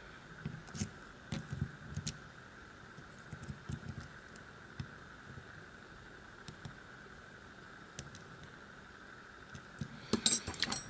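Lock picks working in a VIRO Panzer padlock held in a deep false set: faint scattered ticks and scratches of pick and tension wrench against the pins, then a cluster of louder metallic clicks and clinks near the end.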